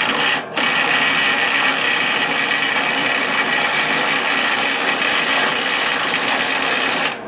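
A handheld power tool runs in a short burst, then continuously for about six and a half seconds. It is driving a nut onto a cutting-edge bolt that is cross-threaded, so the nut won't seat.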